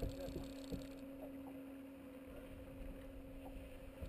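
A few soft knocks in the first second as a freshly landed largemouth bass flops and is handled on the carpeted deck of a bass boat, over a steady low hum.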